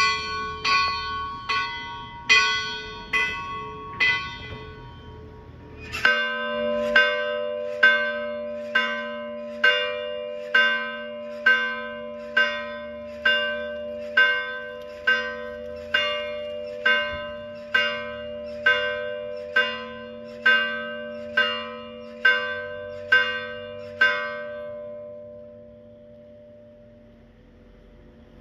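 Church bells tolling for Mass. One bell is struck in an even beat, a little under one stroke a second, for about four seconds. From about six seconds in, a deeper bell is struck steadily at the same pace until near the end, when its last stroke rings away.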